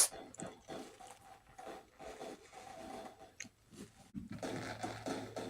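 A dog crunching and chewing a treat, with a sharp crack right at the start. A low steady hum comes in about four seconds in.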